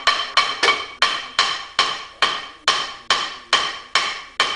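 Steady series of hammer blows, about two and a half a second, on a rust-seized rear brake rotor of a 2006 Jeep Liberty. The rotor rings after each strike. The blows are meant to break the rust ridge that holds the rotor on the emergency brake shoes.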